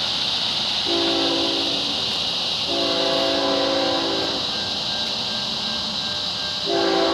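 Distant locomotive air horn sounding the crossing signal. Two long blasts, the first about a second in and the second near three seconds in, then a third begins near the end. Each blast is a chord of several tones.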